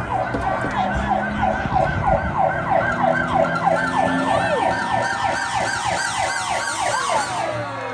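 Siren sound effect in the dance routine's recorded music: fast yelping wails, about three a second, layered at several pitches, fading out near the end.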